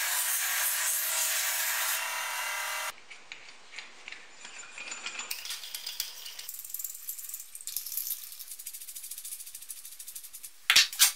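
Homemade belt grinder running with a wooden handle held against the belt, a loud steady sanding noise with fixed tones that cuts off suddenly about three seconds in. After it, light clinks and rattles of steel clamp parts being handled and fitted together, with two louder clacks near the end.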